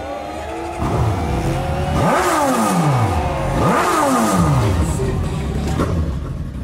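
Dirt bike engine revved repeatedly, its pitch climbing and falling, with two big rev-ups about two and four seconds in.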